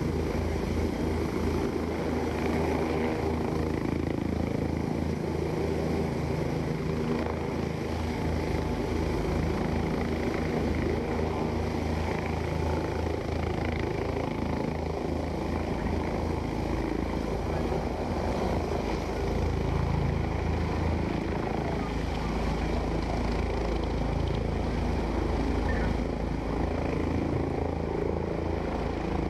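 Helicopter hovering low and descending to land, its rotor beating in a fast, steady rhythm with the engine running under it.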